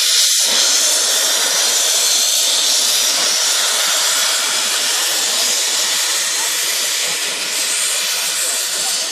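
Prussian P8 steam locomotive (class 38) blowing off a loud, steady hiss of steam at track level, easing slightly near the end.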